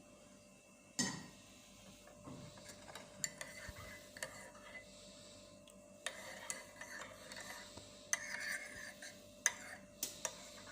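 Faint, scattered clinks, knocks and scrapes of a spoon in a glass while a hot drink is stirred, with a sharper knock about a second in.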